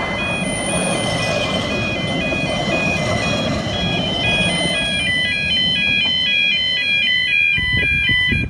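Level crossing warning alarm sounding a rapid repeating two-tone warble over the low rumble of narrow-gauge railway carriages running past. About five seconds in the alarm changes to a quicker alternation, and it cuts off right at the end as the last carriage clears the crossing.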